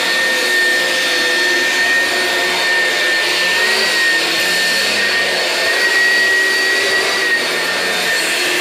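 Oreck XL Classic upright vacuum cleaner running on carpet: a steady high motor whine over a rush of air, its pitch wavering only slightly.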